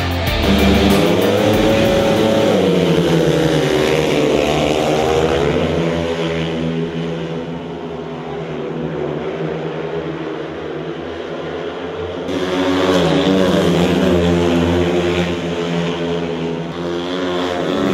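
Speedway motorcycles racing, their single-cylinder 500cc methanol engines running hard, rising and falling in pitch as the riders go into and out of the bends. The engines are loudest in the first few seconds and again in the second half, and fainter in between as the pack goes down the far side of the track.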